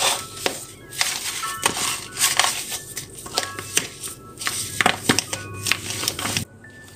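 A hand squishing and turning raw lamb ribs in turmeric seasoning in a bowl: wet squelches and sharp crackling clicks of meat and bone. The mixing noise stops suddenly near the end. Light background music with short plinking notes plays throughout.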